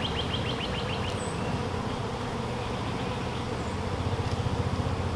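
A package of honeybees buzzing steadily as they fly around their newly installed hive. A rapid run of high chirps sounds during the first second.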